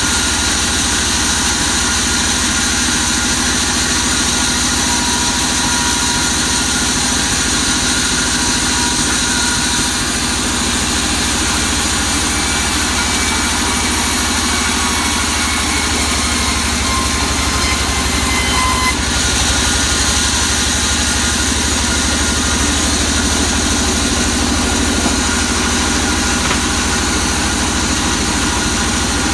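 Vertical band sawmill running steadily as a waru (sea hibiscus) log slab is fed through its blade and edged into a board, a continuous machine drone that shifts slightly in tone about two-thirds of the way through.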